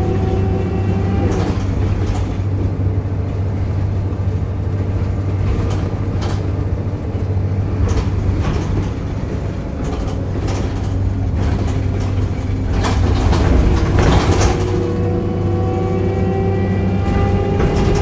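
Volvo B7RLE diesel bus heard from inside the saloon while driving: a steady low engine drone under a pitched groaning tone, which fades in the middle and rises in pitch again near the end as the bus pulls away. Scattered rattles and knocks from the body and fittings.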